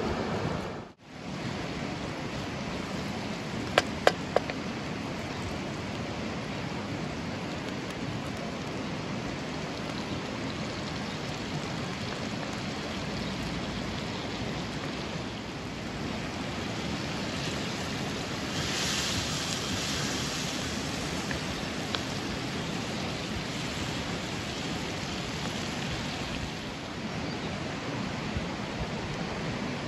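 Steady rushing of a river's flowing water. It drops out briefly about a second in, and three sharp clicks come about four seconds in.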